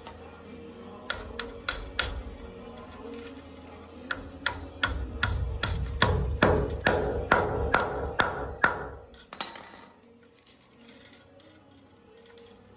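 Hammer driving nails into wood framing: four quick taps, then a steady run of ringing blows about two a second that stops about nine seconds in.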